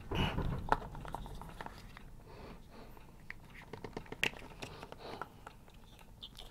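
Small plastic clicks and rubbing as a black inline blade-fuse holder on a radio's power leads is handled and worked open to expose its fuses. There is a louder handling rustle just after the start and a sharp click under a second in.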